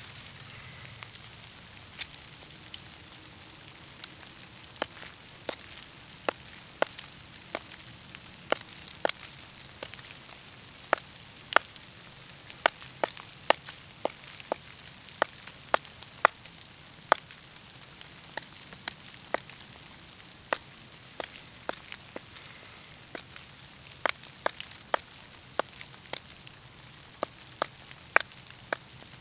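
A hammerstone striking a flat stone held in the hand, as in flint knapping. The strikes are sharp, irregular clacks: only a few in the first seconds, then about one a second, some in quick pairs.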